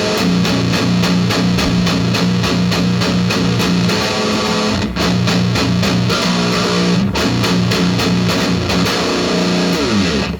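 Electric guitar tuned down to Drop A# playing a heavy riff in a steady rhythm, with brief breaks about five and seven seconds in. It slides down in pitch and cuts off abruptly at the end.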